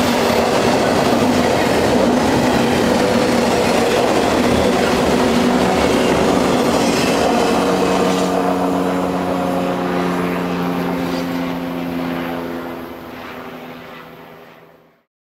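Double-stack intermodal freight train cars rolling past at speed, a loud rush and clatter of wheels on rail. About eight seconds in, the rush thins as the train moves away, leaving a steady ringing that fades out near the end.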